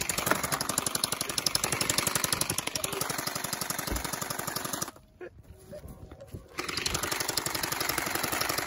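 Electric toy blaster firing on full auto: a fast, even stream of shots, with a break of about a second and a half a little past the middle before it starts again.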